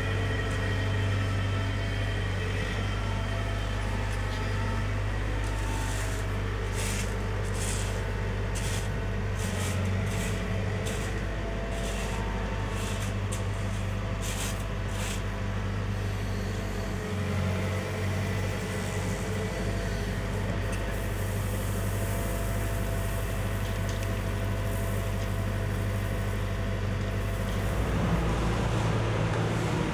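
Diesel engines of a CAT wheel loader and excavator running steadily under work. A run of short, sharp clanks or hisses comes a few seconds in, and the engine note picks up near the end.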